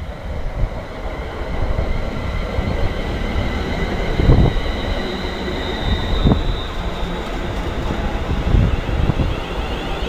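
London Midland Class 350 Desiro electric multiple unit running past along the platform: a steady rumble of wheels on rail, with a thin high whine about halfway through. Several heavy low thuds stand out, the loudest a little over four seconds in.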